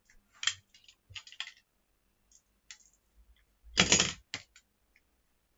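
Plastic card holder with tape on it being handled and picked open: scattered clicks and crinkles, with one louder scratchy rasp of about half a second near four seconds in.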